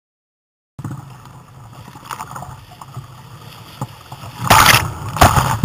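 Surf breaking over a fishing kayak at water level: after nearly a second of silence, a churning wash of water, then two loud crashing splashes as the wave hits, near the end.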